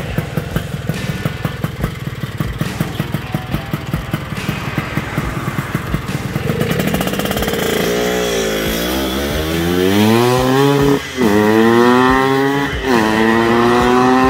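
Yamaha RX-King's 135 cc single-cylinder two-stroke engine, fitted with a stealth silencer baffle, running with a choppy, popping exhaust at low revs, then revving up. Its pitch climbs in long sweeps and drops sharply twice, about 11 and 13 seconds in.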